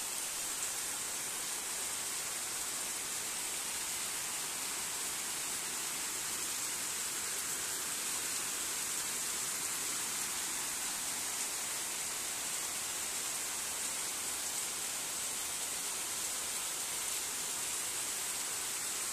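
Heavy rain falling steadily on trees and a wet concrete path: an even, unbroken hiss.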